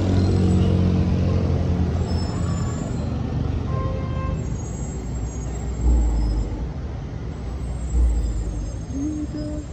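Heavy truck's diesel engine running low and steady as it crawls round a steep hairpin bend, mixed with passing cars and a motorbike. There are two heavier low rumbles in the second half.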